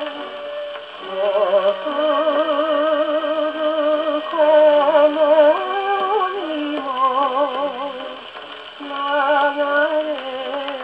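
Portable wind-up gramophone playing a 1948 Columbia 78 rpm shellac record of a Japanese popular song. A man's singing voice carries a wavering melody, with a wide, quick vibrato on the held notes. The sound is thin, with no deep bass and no bright top, as in acoustic playback.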